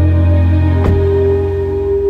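Background music of slow, sustained chords over a steady low drone; just under a second in a brief click marks a change to a new held note.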